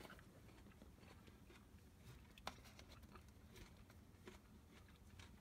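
Near silence: quiet room tone with a few faint small clicks, one sharper click about halfway through.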